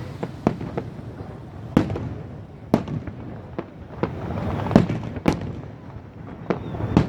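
Aerial fireworks bursting: an irregular series of sharp bangs, some loud and some fainter, coming every fraction of a second to a second, over a steady background din.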